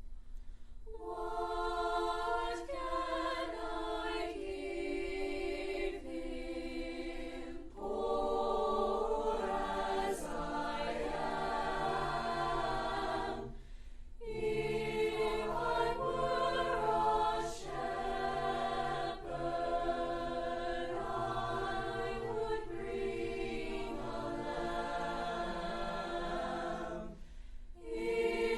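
A choir singing in sustained phrases, with short breaks between phrases about 8 and 14 seconds in and again near the end.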